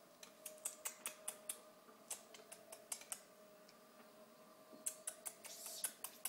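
Quick irregular runs of light clicks and creaks from a baby seat's plastic toy bar and its hanging plush giraffe as the baby tugs at it, in two bursts with a pause in the middle, over a faint steady hum.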